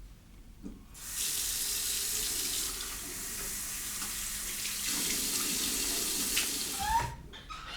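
Water tap running into a sink, starting about a second in and cutting off suddenly near the end, with a short rising squeak just before it stops.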